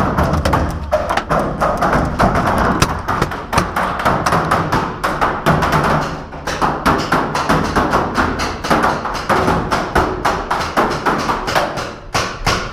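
Rapid, overlapping paintball marker fire, with a dense run of sharp pops and knocks several per second, many of them paintballs striking wood.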